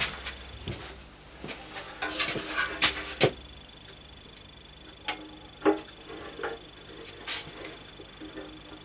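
Motorcycle fuel tank being lifted onto the frame and pressed down: scattered knocks and clatters of metal handling, a cluster about two to three seconds in and a few single knocks later.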